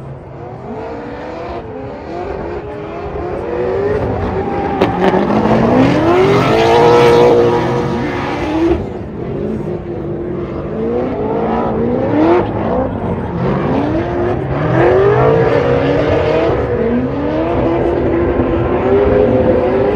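Drift car engine revving hard and repeatedly, its pitch sweeping up and dropping back every second or two as the throttle is worked through the slide. Spinning tyres hiss underneath; it is loudest about a third of the way in.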